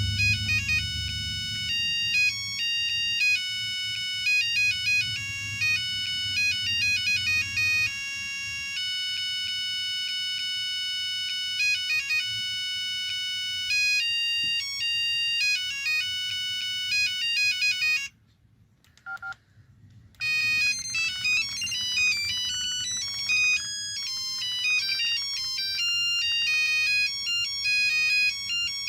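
Ringtone melodies playing from an LG V111 mobile phone: one tune runs for about eighteen seconds and cuts off, and after a short pause with a couple of brief notes another tune starts.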